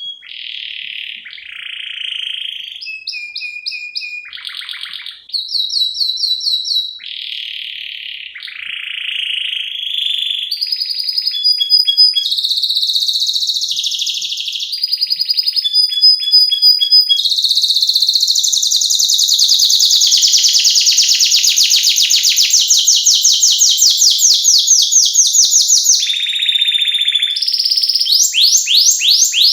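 Domestic canary singing a long, varied song: short phrases of repeated notes that change every second or two, then a long, rapid trill through much of the second half, and another fast trill near the end.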